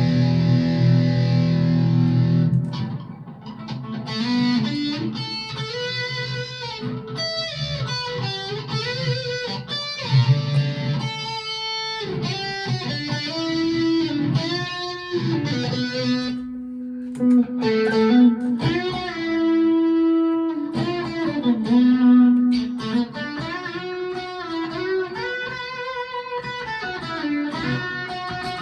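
Rockburn Strat-style electric guitar with ceramic pickups played through a Behringer Ultra Metal distortion pedal. A held chord rings for about two and a half seconds, then single-note lead lines follow, with bends and vibrato. It is a little out of tune on its freshly fitted Ernie Ball strings.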